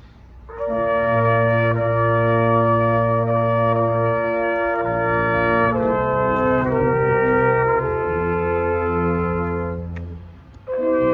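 Brass quintet, with trumpets and tuba, playing a slow chorale in long held chords. The players come in together about half a second in, hold and change chords, then pause briefly near the end before the next phrase begins.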